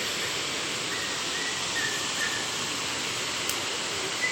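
Steady rush of a waterfall's falling water, an even hiss with no breaks, with a few faint short high tones over it.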